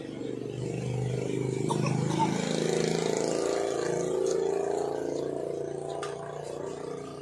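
A motor vehicle engine passing by, growing louder over the first few seconds and then fading away.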